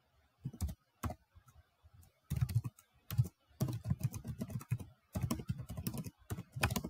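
Typing on a computer keyboard: a few scattered keystrokes at first, then quicker runs of key clicks with short pauses between them.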